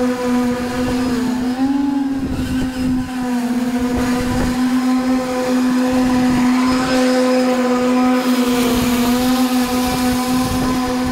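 Steady whine of an electric motor running at a constant speed, its pitch dipping briefly about two seconds in and again near the end.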